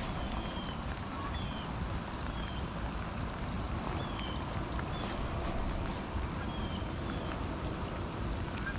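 Rain falling on the lake with wind rumble on the microphone, a steady hiss. Short high chirps, about one a second, run over it throughout.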